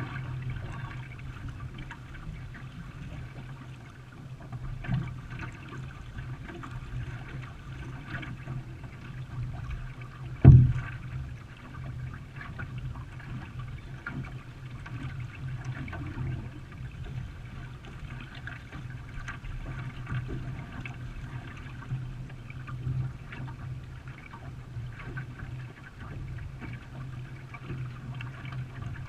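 Water trickling and splashing around a racing canoe under way, over a steady low rumble. There is a single loud thump about ten seconds in, and a lighter knock before it.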